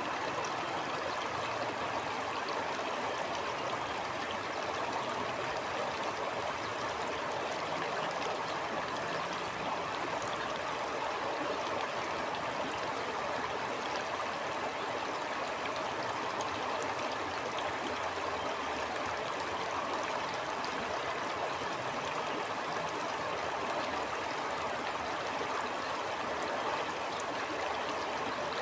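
A flowing stream running steadily, a continuous even rush of water with faint small splashes and trickles.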